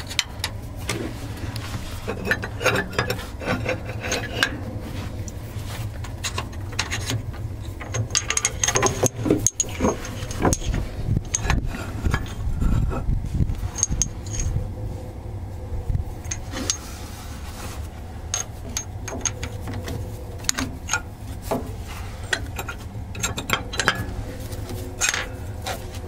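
Scattered metal clinks, taps and scraping as a long steel pin is worked by hand into the brake equalizer plate linkage of an International Harvester TD-7C bulldozer, with hands rubbing against the hydraulic hoses, over a steady low rumble.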